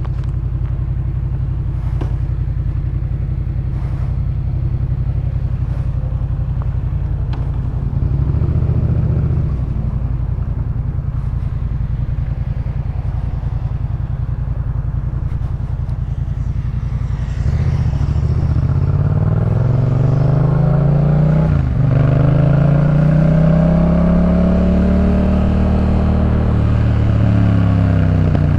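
Yamaha MT-07's parallel-twin engine through a Jeskap K4 full aftermarket exhaust, idling steadily with a short blip of revs about eight seconds in. Past halfway it pulls away, its pitch rising and falling as it accelerates, with a gear change in between.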